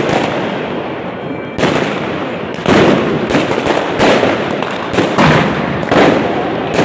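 Aerial fireworks bursting overhead in a steady barrage: sharp bangs about once a second over a continuous noisy din of further bursts.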